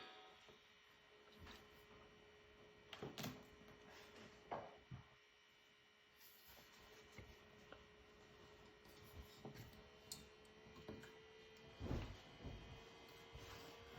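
Near silence: faint room tone with a steady low hum and a few soft, short knocks.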